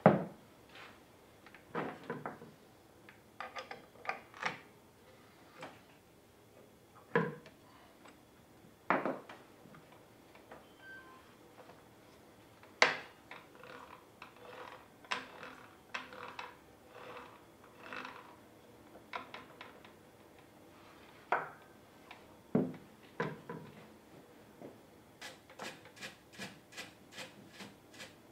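Handling noise from working on a circular saw: a dozen or so separate clicks, knocks and light rubs of parts being moved and set down, then a quick run of light clicks near the end.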